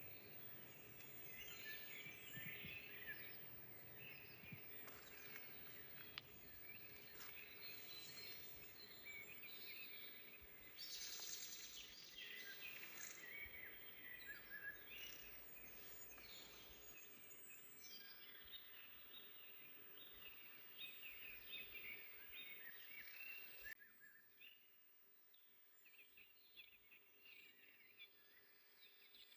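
Faint forest birdsong: several small birds chirping and singing over a soft background hiss. About three-quarters of the way through, the sound cuts abruptly to a quieter stretch with only a few faint chirps.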